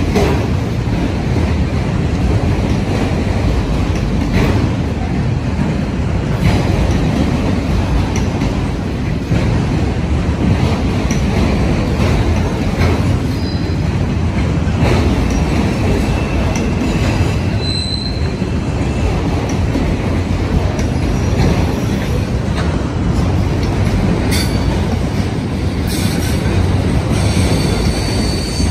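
Long freight train of autorack cars rolling past close by: a steady rumble of steel wheels on rail, with clicks over the rail joints and a few brief high wheel squeals.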